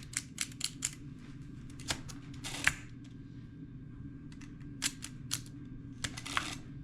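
Monroe Model L-200 mechanical adding machine being worked by hand: a quick run of sharp key clicks, then single clicks and a couple of longer rasping mechanical strokes as the mechanism is cycled, over a steady low hum.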